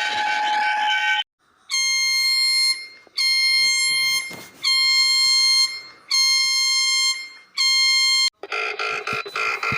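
Electronic emergency-alert alarm tone: a buzzy beep about a second long, repeated five times with short gaps. It follows a steady tone that cuts off about a second in, and a pulsing electronic sound takes over near the end.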